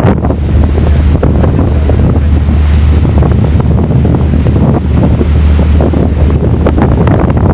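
Wind buffeting the microphone over the rush and splash of a ship's bow wave cutting through open water, with a steady low rumble underneath.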